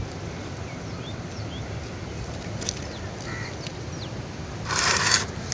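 Steady wind rumble with a few faint bird chirps, then a short, loud scraping rustle about five seconds in.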